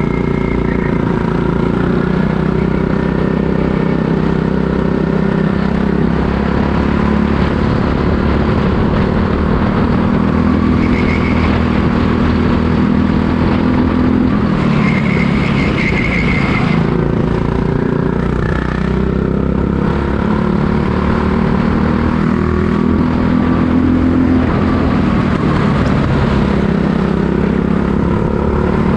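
Racing kart engine running hard under load, its pitch rising and falling repeatedly as the revs build and drop back.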